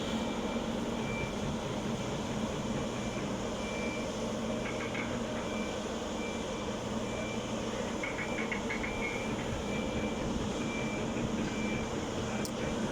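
Heavy launching machinery running steadily, with a short high warning beep sounding again and again while it moves the yacht toward the water.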